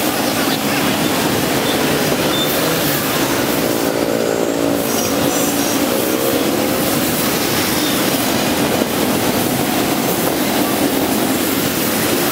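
Dense scooter and motorbike traffic: many small engines running together in a steady din. Around three to six seconds in, one engine passes close and its note slides in pitch.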